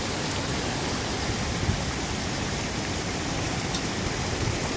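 Heavy rain falling steadily on lawn and paving, an even hiss without a break.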